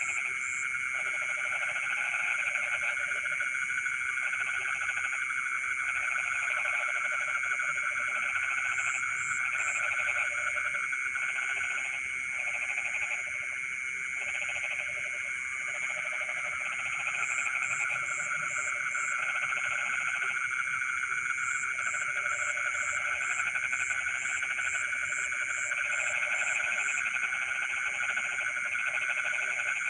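Dense chorus of frogs calling in rice paddies: a steady high trilling hum overlaid with repeated croaking calls, each about a second long, coming one after another. Short runs of high, quick chirps come in now and then, several times.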